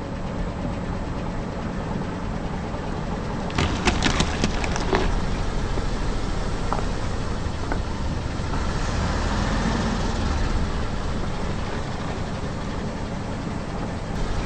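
Car engine running at low speed with a steady rumble, and a short run of sharp crackles about four seconds in.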